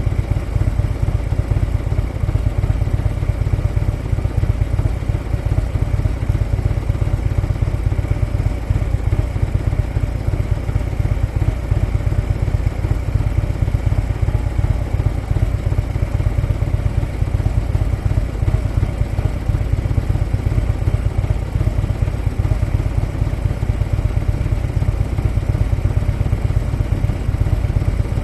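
Harley-Davidson motorcycle's V-twin engine running steadily while riding, its deep pulsing low end holding even throughout with no big revs or stops.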